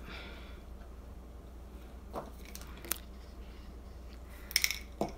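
Gloved hands handling a sheet of alcohol-ink cardstock: a few short, faint crinkles and taps about two and three seconds in, and a sharper crackle near the end, over a low room hum.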